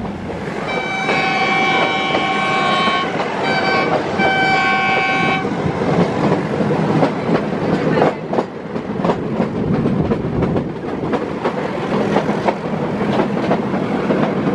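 Metre-gauge passenger train running, heard from an open coach window. In the first few seconds the locomotive horn sounds three times: a long blast, a short one, then a medium one. After that the wheels clatter over the rail joints over a steady rumble.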